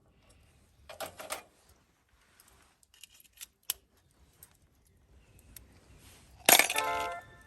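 Small clinks and rustling handling noises, then about six and a half seconds in a loud hit followed by a short chime jingle of stepped notes that leads into background music.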